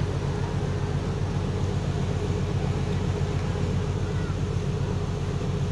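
Steady low drone of a ferry's diesel engines, a hum made of several even low pitches that holds at one level throughout. A few faint short chirps sound over it.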